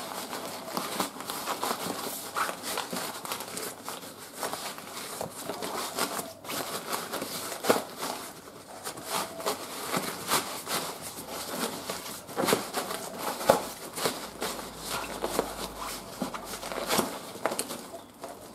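Handling noise of an inflated nylon hiking pad being pushed under a mesh seat net: irregular rustling and crinkling with scattered scratches, clicks and taps.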